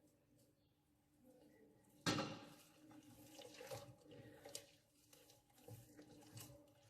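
A utensil knocking and scraping against a mixing bowl while stirring a soft butter-and-oil cookie batter, starting with a sharper knock about two seconds in, then irregular light clinks and scrapes.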